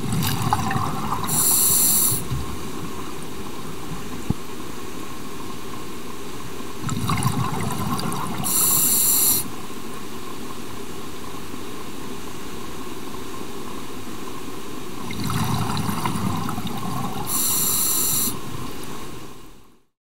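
Scuba diver breathing through a regulator: three breaths about eight seconds apart, each a bubbly rumble followed by a short hiss, over a steady underwater hiss. The sound fades out at the end.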